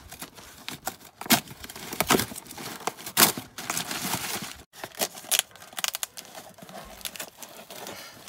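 Cardboard shipping box being torn open by hand, with paper packing crumpled, in a run of irregular rips and rustles, loudest from about one to three and a half seconds in.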